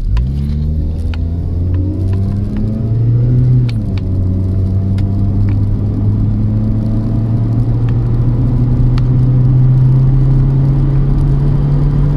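Volkswagen Golf Mk2 1.6 petrol four-cylinder engine pulling hard from a standing start under full throttle, heard from inside the cabin. The engine note climbs, dips about four seconds in as the automatic gearbox shifts up, then climbs slowly and steadily as the car gathers speed toward 60 mph.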